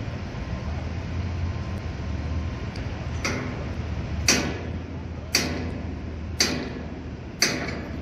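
Construction-site machinery: a steady low engine rumble, joined about three seconds in by sharp metallic bangs, evenly spaced about once a second, four in all.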